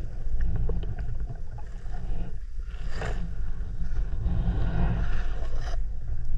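Muffled underwater sound picked up by a camera in a waterproof housing: a steady low rumble with swishes of moving water, louder about three seconds in and again near the end.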